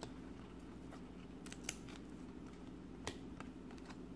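Glossy basketball trading cards being handled and flipped through in the hands: a few short sharp clicks as the cards slide and tap against one another, the loudest about a second and a half in, over a steady low hum.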